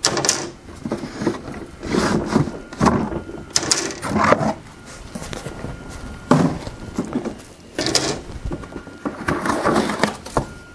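Unpacking noises: clear plastic dehydrator trays set down and stacked on a table and cardboard packing pulled from a box, heard as several separate clatters and rustles a second or two apart.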